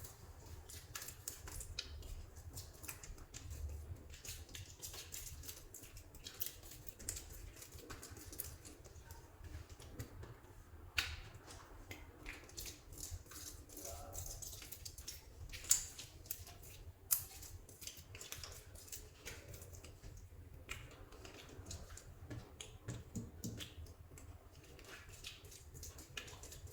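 Soft modelling clay being worked by hand: a steady run of faint sticky crackles and small clicks, with a few sharper snaps standing out.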